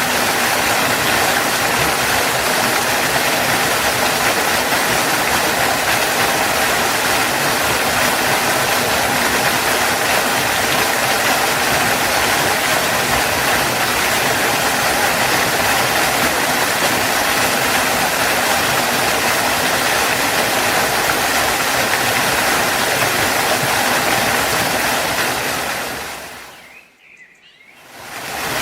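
Waterfall with a steady, loud rush of falling water. Near the end it fades out briefly, then comes back.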